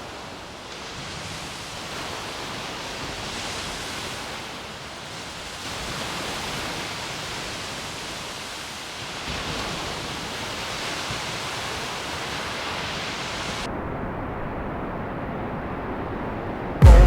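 Ocean surf rushing steadily, with wind on the microphone. The sound shifts a few times and loses its hiss about three-quarters of the way through, and loud music cuts in at the very end.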